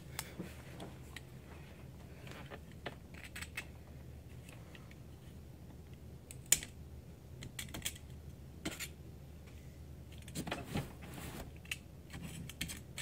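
Scattered light clicks and taps of small hard objects being handled on a work surface, with one sharper click about six and a half seconds in and a cluster of taps near the end.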